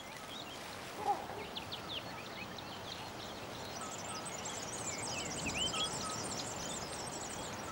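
Wild birds chirping and whistling over a steady outdoor hiss, with many short high calls that grow denser from about halfway through. One brief, lower sound stands out about a second in.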